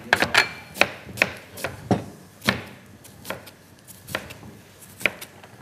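Irregular sharp knocks and clicks of kitchen utensils, several a second at first and thinning out later.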